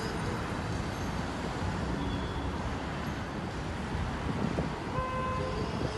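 Street traffic rumbling, with a car horn sounding once briefly about five seconds in, as drivers honk in protest.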